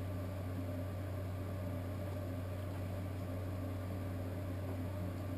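Steady low hum with a faint hiss over it, unchanging throughout; no distinct sound stands out.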